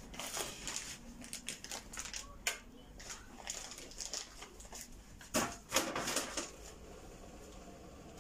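Scattered small knocks, clicks and rustles of kitchen items being handled and set down, with two louder knocks about five and a half and six seconds in.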